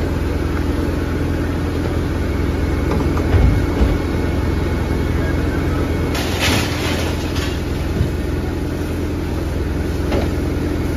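Steady low drone of a running engine, as of a fire engine driving its pump to feed the hoses, with a few sharp cracks and a short burst of crackling about six seconds in.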